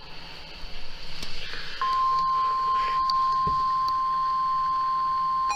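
NOAA Weather Radio warning alarm tone: a steady single-pitch tone of about 1050 Hz that starts about two seconds in and holds unchanged, signalling that a new warning is about to be broadcast. Before it there is only faint radio hiss.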